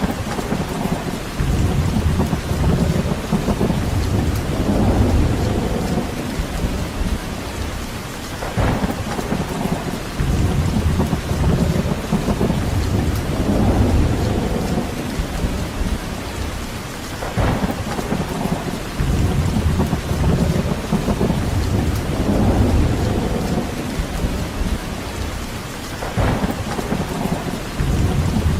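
Steady rain hissing, with low rumbling swells that rise and fade about every nine seconds, each preceded by a brief sharper crackle.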